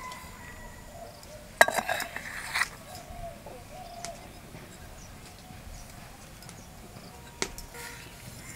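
A metal measuring cup clinking and scraping against a stainless steel mixing bowl as gram flour is scooped and poured. There is a short run of clinks about a second and a half in and a single sharp clink near the end. Birds chirp faintly in the background.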